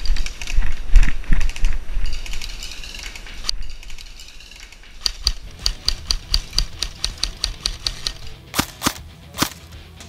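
Airsoft BB pellets striking hollow bamboo stalks, each hit giving a ringing knock, amid the clack of airsoft gun shots. Irregular hits at first, then an even run of about four shots a second with a ringing ping on each, and a few louder cracks near the end.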